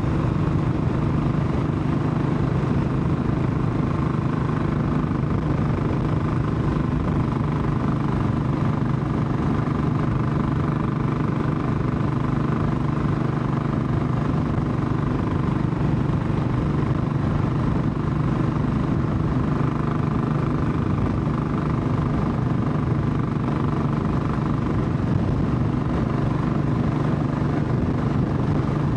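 Royal Enfield Classic 500's single-cylinder engine running at a steady cruise under way, its exhaust note holding an even pitch with no revving up or down.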